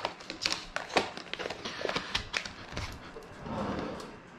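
Irregular light clicks and taps of a spoon and small containers being handled against a glass bowl and the counter.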